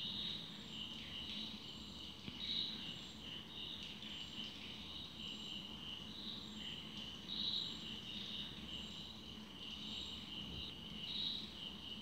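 Crickets chirping in a steady, pulsing high trill, with a faint low hum beneath.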